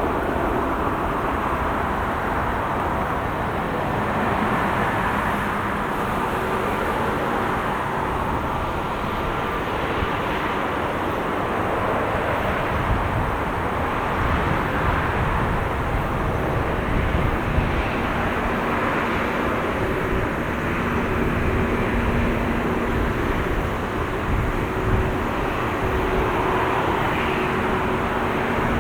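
Airliner jet engines running steadily at low power on the ground, an even rumble with a faint steady hum.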